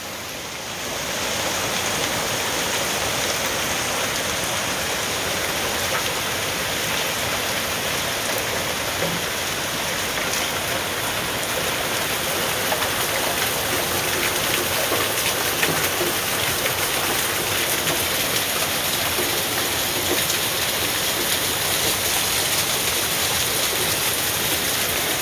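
Heavy rain pouring down steadily as an even, dense hiss, with water running off a roof edge and scattered drops ticking close by. It builds up over the first second or two, then holds steady.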